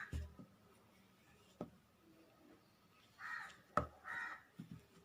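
A crow cawing faintly in the background, three short caws, the last two close together near the end. Two light clicks of handling occur in between.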